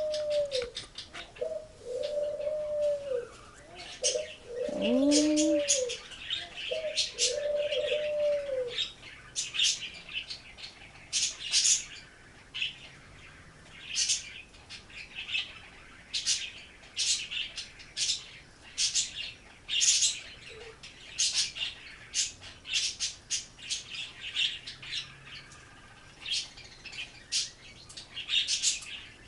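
A dove cooing, a series of about five arched coos over the first nine seconds, while small birds chirp in short, high notes throughout.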